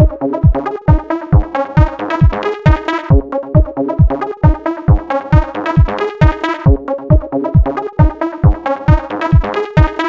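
Electronic dance music: a steady kick drum at about two beats a second under repeating synthesizer chords.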